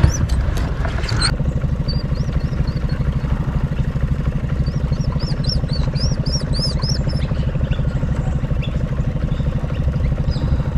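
Boat outboard motor running steadily with an even low pulse, pushing a small aluminium boat while trolling. Birds chirp over it in short repeated calls from about two to seven seconds in.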